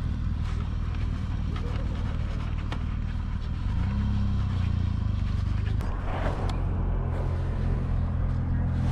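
A motor vehicle's engine idling steadily, with a few light clicks from handling a handlebar-mounted tyre pressure monitor display.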